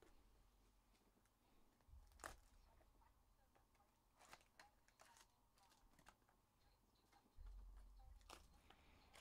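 Near silence, with a few faint crinkles and taps as foil-wrapped trading card packs are handled, and a couple of soft low bumps.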